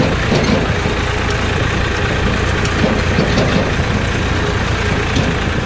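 Eicher tractor's diesel engine running steadily as the tractor drives along, heard from the driver's seat.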